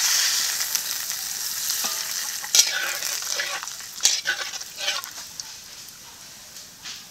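Whole spices (cumin seeds, bay leaves and whole garam masala) sizzling in hot mustard oil in a kadai, stirred with a spatula that scrapes the pan a few times. The sizzle is loudest at first and dies down as the spices fry.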